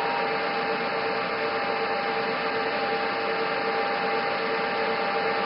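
A steady hiss and hum with two constant tones, unchanging throughout.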